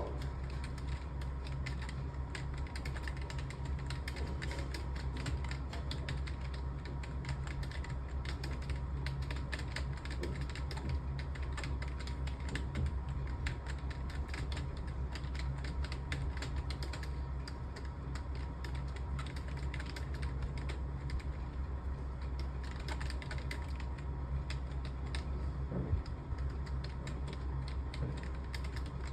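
Fast continuous typing on a computer keyboard, a dense irregular stream of key clicks, over a steady low hum.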